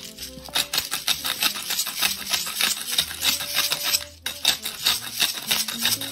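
Salt and pepper being sprinkled by pinched fingertips over a bowl of egg batter: a rapid run of dry crackling clicks from the grains rubbed between the fingers.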